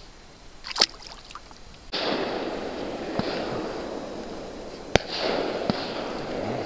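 Fireworks going off: a sharp bang under a second in, then a steady hiss of noise that sets in suddenly about two seconds in, with another sharp bang near five seconds.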